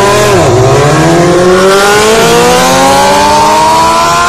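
Two heavyweight sport motorcycles, a 1000 cc and a 1300 cc, launching side by side in a drag race. The engine note dips about half a second in as the bikes leave the line, then climbs steadily in pitch as they accelerate hard away.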